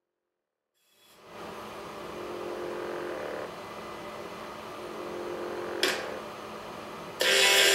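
A steady hum with a few fixed tones fades in after about a second, with a short click near six seconds. Loud music cuts in abruptly just before the end.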